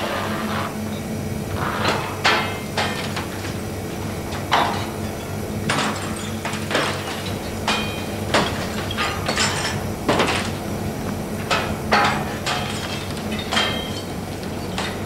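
Junk being smashed and thrown about: irregular knocks, crashes and clatter, roughly one a second, some with a short high ringing, over a steady low hum.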